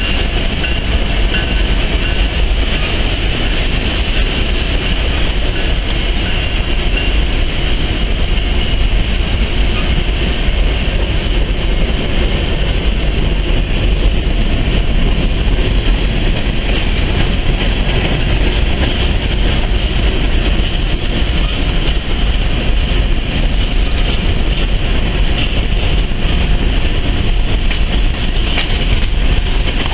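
Loaded coal hopper cars of a freight train rolling steadily past, with the continuous rumble and clatter of steel wheels on the rails.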